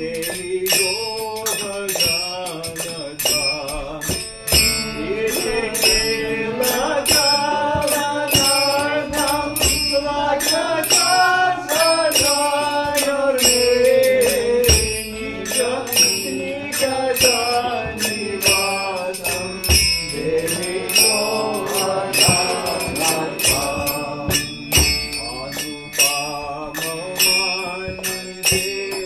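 Devotional bhajan singing: a man's voice carrying the melody over a harmonium, kept in time by small brass hand cymbals (karatalas) struck about twice a second, with a few drum strokes.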